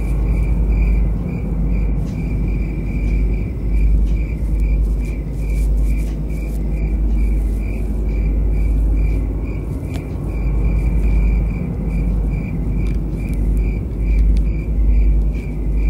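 Crickets chirping evenly, about twice a second, over a deep, steady rumble: a night-time ambience track.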